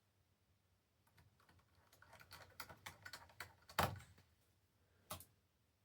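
Faint, irregular run of small sharp clicks and taps as a laptop's case and screws are handled with a screwdriver, with a louder tap about four seconds in and another about five seconds in.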